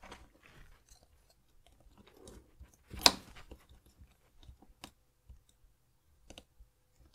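Handling noise from a small plastic smartwatch being reassembled by hand, its display module pressed back into the plastic case: light rustles and small clicks, with one sharp click about three seconds in.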